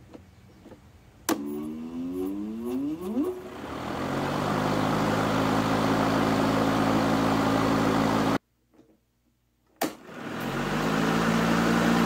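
Battery lawnmower's electric motor and blade started twice. The first start, with the soft-start circuit board in place, is a click and then a slow spool-up, rising in pitch over two to three seconds to a steady run. After an abrupt cut, the second start, with the board removed and the battery switched straight to the motor through the contactor, is a click and then a much quicker rise to full speed in about a second.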